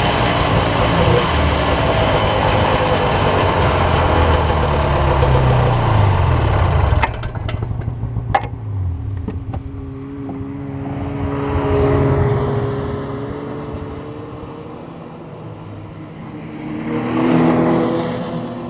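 Snowmobile engine running at speed with wind rush, then the throttle is let off about seven seconds in and the engine drops to a quieter run with a few clicks. Near the end another snowmobile passes close by, its engine swelling and fading.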